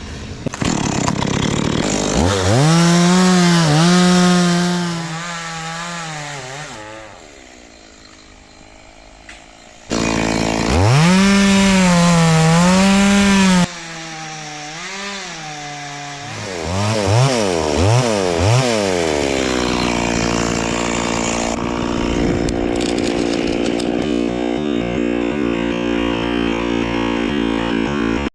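Two-stroke chainsaw revving to full throttle while cutting through a tree section, held for a few seconds twice with easing off between. A few quick throttle blips follow, then it runs at a steady, lower speed.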